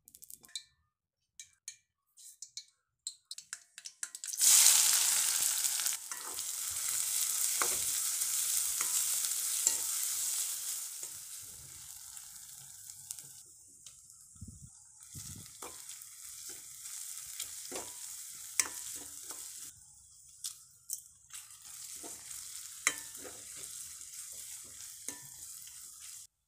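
A few light taps of a wooden spatula on an empty aluminium kadai, then a sudden loud sizzle about four seconds in as chopped onions go into hot fat. After several seconds the sizzle eases into quieter, steady frying, with the spatula scraping and knocking against the pan as the onions are stirred.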